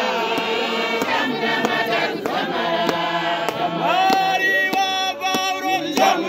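A group of men singing together in harmony, several voices holding and sliding between notes, with sharp claps or knocks keeping time.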